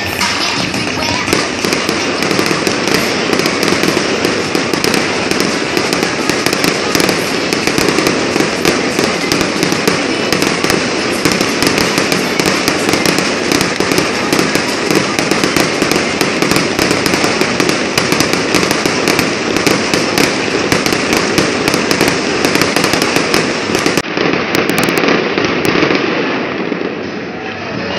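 Fireworks display: a dense, unbroken stream of bangs and crackles from aerial shells and fountain fireworks, easing off near the end.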